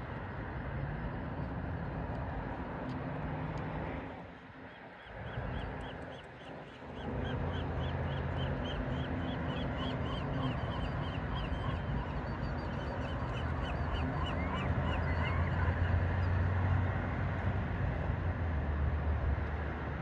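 Birds calling over the water, one repeating a short high call about three times a second for several seconds. Behind them runs a steady low rumble of distant traffic.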